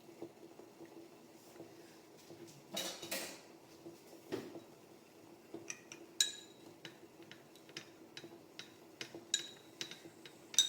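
Cups and kitchen utensils clinking and knocking as a drink is served, with a scrape about three seconds in and a run of sharp, ringing clinks through the second half.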